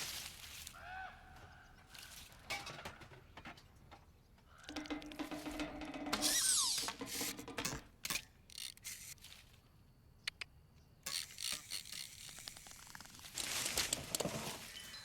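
Animated-film sound-effects track with no music or dialogue: a quick string of separate effects, with clicks and knocks, rattling and swishing noises, a short held tone and a falling glide about six seconds in.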